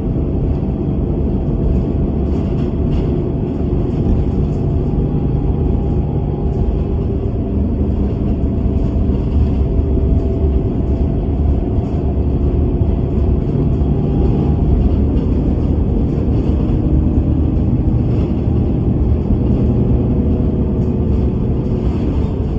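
Bus under way: a steady engine and road rumble, with a whine from the drivetrain that rises and falls in pitch as it changes speed, and light rattles here and there.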